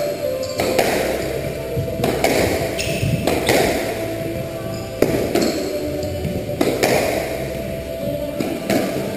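Squash ball being struck by rackets and hitting the court walls and floor during a rally: sharp cracks with a short ringing echo, one every second or two at an uneven pace. Background music plays underneath.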